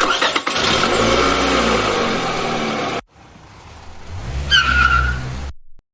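Stock car sound effects: a car engine running loudly as the car drives off, cut off abruptly about three seconds in, then a second engine sound building up with a brief tyre squeal, stopping suddenly near the end.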